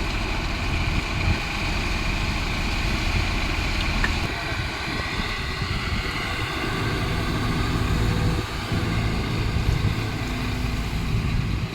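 Diesel engine of a Kobelco excavator running steadily, a continuous low drone whose texture gets rougher about four seconds in.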